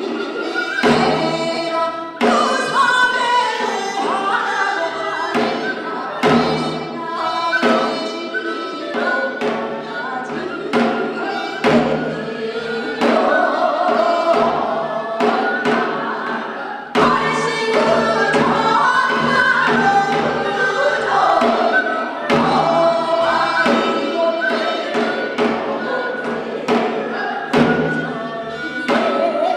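A woman singing in the traditional Korean sori style, accompanied by traditional Korean drums struck in a steady rhythm of frequent sharp beats.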